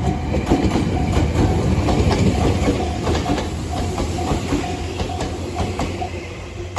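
Electric train passing through a level crossing, its wheels clacking over the rail joints in a rapid run of clicks. Over it the crossing warning bell dings repeatedly, stopping about six seconds in.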